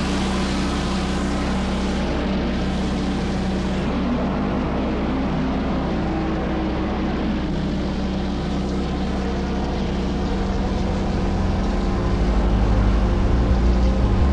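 Pressure-washing rig running steadily: a gas engine's hum under the hiss of high-pressure water on concrete. A deeper rumble grows louder about ten seconds in.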